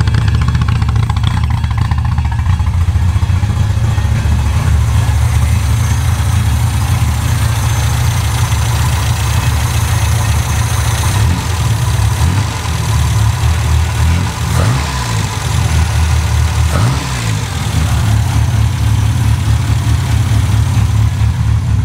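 Toyota Starlet KP61's four-cylinder engine on a Weber 32/36 carburettor, idling steadily through a Spoon N1 exhaust muffler as it warms up. The engine speed rises briefly twice, about two-thirds of the way through.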